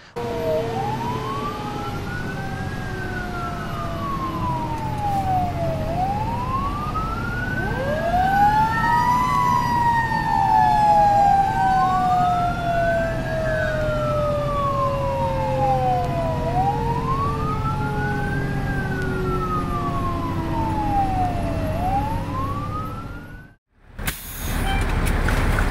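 Fire engine siren heard from inside the cab: a wail that rises and falls about every five seconds, over a second, lower siren tone that climbs once and then slowly sinks, with the truck's engine rumbling beneath. Near the end the siren cuts off suddenly, leaving cab and road noise.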